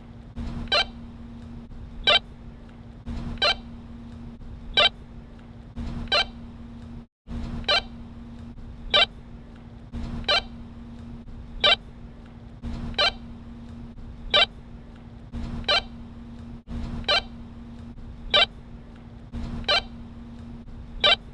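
Walkie-talkie radio sound effect: short, sharp chirps and half-second bursts of squelch static repeat in a loop, a set about every three seconds, over a constant radio hiss and a low hum.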